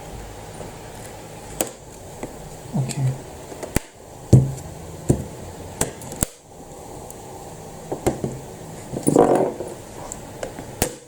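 Irregular plastic clicks, snaps and hollow knocks as the bottom cover of a Lenovo Yoga 500 laptop is pried off its clips and handled. There are about a dozen separate sharp taps, some with a short dull thud.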